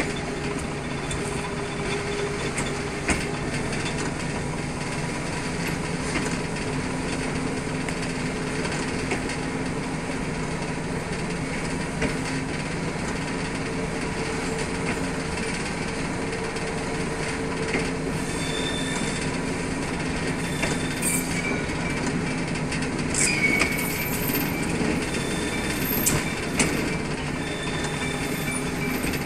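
TGM6V diesel-hydraulic shunting locomotive running slowly along the track: a steady diesel engine hum, with a few sharp clicks from the wheels over rail joints. In the second half, short high squeals come from the wheel flanges as the track curves.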